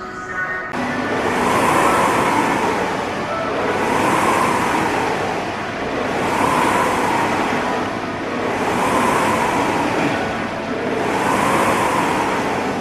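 Rowing machine's air flywheel whooshing with each stroke, a rush that swells and fades about every two and a half seconds, five times.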